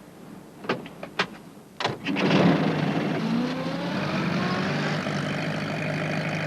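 A few sharp clicks, then a van's engine starts about two seconds in and runs steadily.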